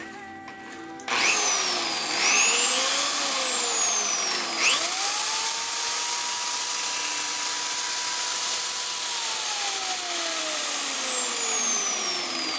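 DCA ASP04-180 electric polisher spinning an abrasive bristle brush wheel against a wooden board to raise the grain: a motor whine over a rough brushing hiss. The whine starts suddenly about a second in, climbs and dips, jumps higher near five seconds and holds, then slowly falls over the last few seconds.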